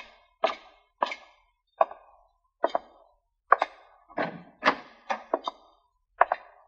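Radio-drama sound effect of a man's boot footsteps on wooden boards, sharp heel strikes at a walking pace. About three and a half seconds in the steps come closer together and uneven, some in quick pairs.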